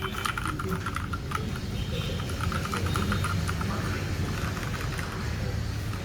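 Keys being typed on an AKKO 3084 V2 mechanical keyboard with AKKO CS Jelly Pink linear switches: a run of quick keystroke clacks that thins out in the middle. Underneath is a steady low background rumble.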